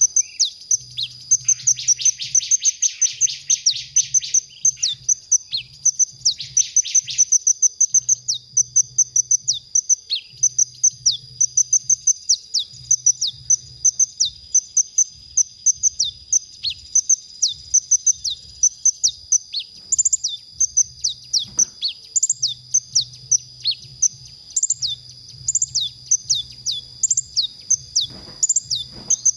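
Kolibri ninja sunbird singing: a long run of sharp, high chirps, several a second, broken by fast buzzy trills about two and six seconds in.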